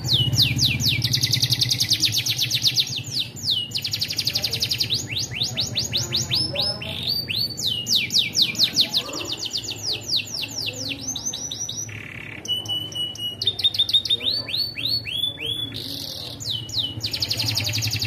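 Domestic canary singing a long, unbroken song of fast rolling trills built from rapid downward-sweeping notes, changing phrase every few seconds, with a few short breaks and a couple of held whistled notes about two-thirds of the way through.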